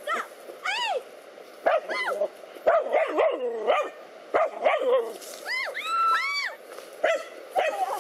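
Dogs barking and yelping in rapid bursts at a snake they are confronting. There are several short sharp barks through the middle and a run of higher, arching yelps about five and a half seconds in.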